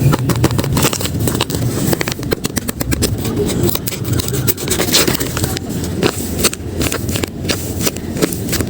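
Paper rustling and scraping with many small crackles as handmade paper blind bags are handled and opened by hand.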